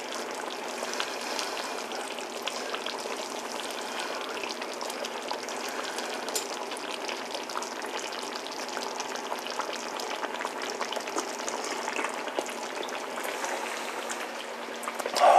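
Pot of chili simmering on low heat: a steady crackling bubble with many small scattered pops as the thick sauce spits.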